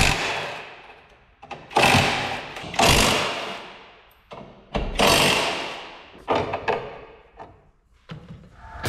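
Cordless impact wrench run in about five short bursts, each trailing off, undoing fasteners in a BMW E46 engine bay during engine removal.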